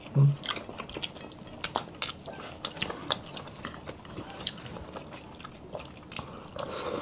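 Close-up eating sounds of several people chewing BBQ beef ribs and rice: wet chewing, lip smacks and scattered sharp clicks. A short low hum-like voice sound comes about a quarter second in.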